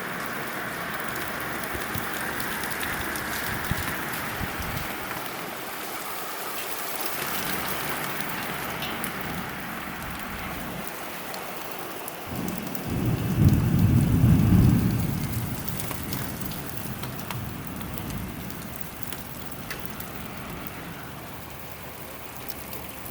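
Heavy rain pouring down in big drops, a steady hiss of water hitting the ground. Just past the middle a low roll of thunder rumbles for about three seconds, then fades back under the rain.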